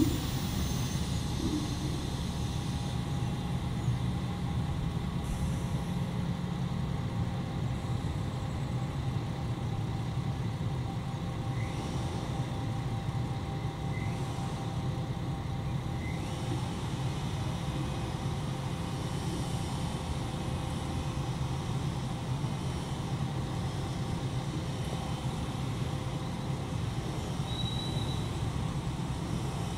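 ČD class 814 RegioNova diesel railcar idling at a standstill, a steady low engine hum.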